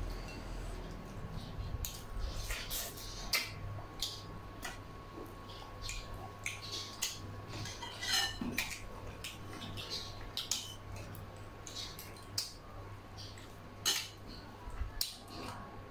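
Metal spoons and forks clinking and scraping against ceramic rice bowls while eating, a scatter of short sharp clicks at irregular intervals.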